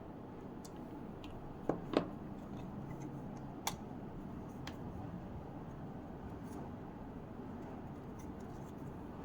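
A few short, sharp clicks and taps from small objects being handled, two close together about two seconds in and a couple of fainter ones after, over a steady low background hiss.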